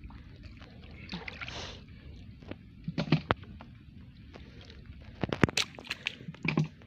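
Shallow muddy water sloshing and splashing as people wade and work their hands through it, with scattered sharp knocks that bunch up in the second half.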